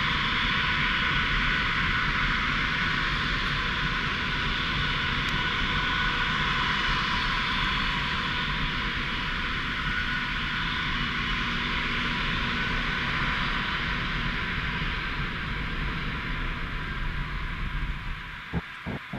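Antonov An-124-100's four Progress D-18T turbofan engines at high thrust on the takeoff roll: a steady jet noise with a thin whine that slowly fades toward the end. A few sharp knocks come just before it ends.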